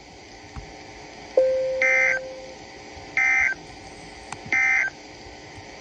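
Three short, identical digital data bursts of an Emergency Alert System end-of-message code on NOAA Weather Radio, about a second and a half apart, closing the severe thunderstorm warning. Just before the first burst a sudden low tone starts and fades out over about a second.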